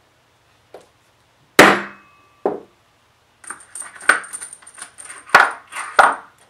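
One firm hammer strike on a steel letter stamp, punching a letter into a thick aluminum blank on a steel bench block, with a short ring, followed by a lighter knock. Then a run of metallic clinks as steel letter stamps knock against each other in their plastic case while one is put back and another picked out.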